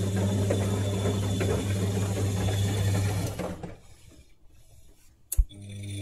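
Siemens WD14H420 washer-dryer running with a steady low hum and light mechanical rattle. The sound drops away about four seconds in, then a single sharp click and the running sound comes back near the end.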